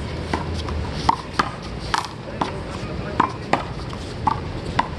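One-wall handball rally: a small rubber handball slapped by open hands and smacking off the wall and court, a string of sharp smacks at about two or three a second, unevenly spaced.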